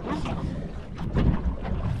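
Wind buffeting the microphone over choppy water lapping against a small boat, with a few scattered knocks.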